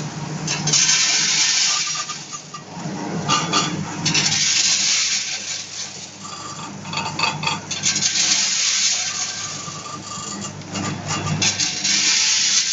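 Peanut pouch packing machine running: peanuts rattling and scraping in its rotating volumetric cup filler in uneven noisy surges over a steady low motor hum.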